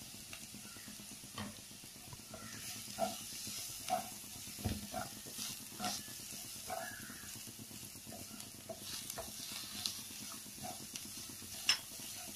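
Shredded cabbage, carrot and onion sizzling steadily in a frying pan while a spatula stirs them, scraping and tapping against the pan at irregular moments.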